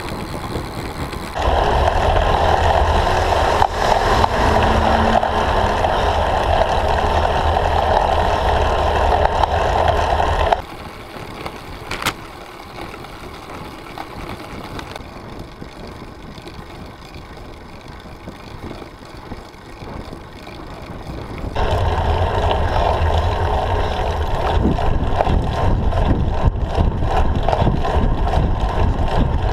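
Wind buffeting a bicycle handlebar camera's microphone, coming on abruptly about a second and a half in, dropping away about ten seconds in to a quieter rolling hum with a single sharp click, then returning strongly near twenty-two seconds.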